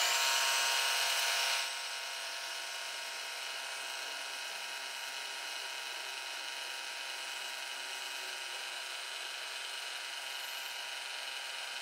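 Milling machine spindle running with a small end mill taking a light cut across the bottom of a casting: a steady whine, louder for the first second and a half or so, then even.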